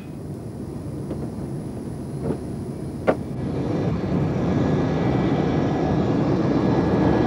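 Jet airliner taking off, a DC-9 with its two rear-mounted jet engines at takeoff power; the engine noise grows steadily louder as it rolls and lifts off. A brief sharp click about three seconds in.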